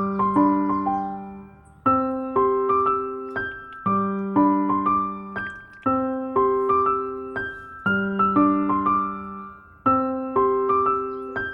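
Background music: a gentle keyboard tune of struck, fading notes, with a new chord about every two seconds in a short phrase that loops.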